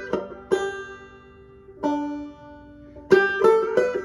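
Five-string banjo played clawhammer style: single plucked notes left to ring, then a quicker run of notes about three seconds in.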